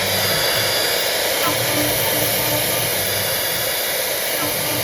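CNC router running, a loud steady hiss of machine noise.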